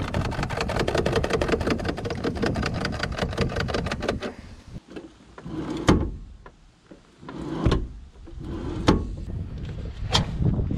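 Manual driver's seat adjusters of a Renault Kangoo Van being worked: a fast, even run of ratchet clicks for about four seconds, then a few single clunks as the latches catch.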